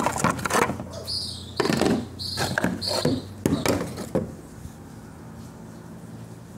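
Stiff moulded resin pieces being handled on a workbench: a run of knocks and scrapes with a few short high squeaks over about four seconds, then only a steady low hum.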